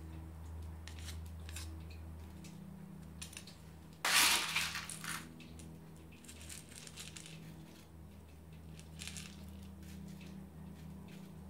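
Small pebbles of masato grit trickling from a scoop and clicking against one another as they are dropped around the succulent's stems. There are scattered light ticks, and a louder pour of grit about four seconds in. A steady low hum runs underneath.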